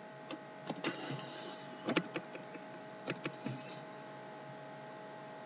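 Computer mouse clicking, about eight short clicks in the first few seconds, over a steady faint electrical hum.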